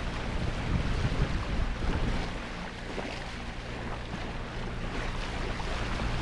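Wind and water rushing along a sailboat's hull under sail, with wind buffeting the microphone and a steady low hum underneath.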